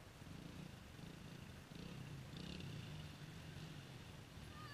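Faint, distant dirt bike engine running, its low hum rising and falling in pitch, a little louder from about two seconds in.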